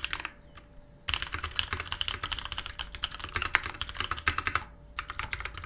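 Typing sound test on a Matrix Abel custom tenkeyless keyboard with Cherry MX Brown tactile switches on an aluminium plate: rapid, dense keystrokes. There is a short pause under a second in and another brief one near the end.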